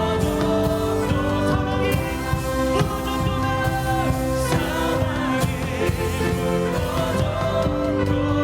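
Live worship band music: long held keyboard chords and string-like pads over bass and a steady drum beat, with some singing in the mix.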